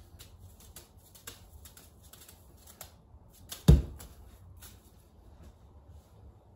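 Balls of pie dough in plastic wrap being handled, the wrap giving off light crinkles and rustles. One dull thud comes a little past halfway, as a ball is dropped onto the stone countertop.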